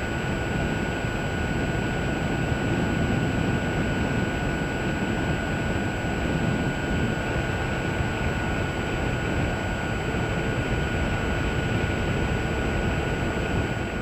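Small remote-controlled aircraft's electric motor and propeller running steadily, heard from the camera on board, with a steady high whine over wind rush.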